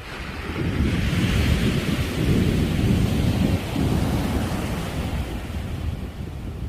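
A sea wave breaking and washing in as surf: a rushing surge with a deep rumble underneath that builds over about the first second and slowly fades toward the end.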